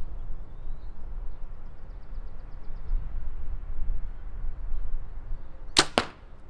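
A compound bow firing off a thumb-trigger release aid: two sharp snaps in quick succession near the end, over a steady low rumble.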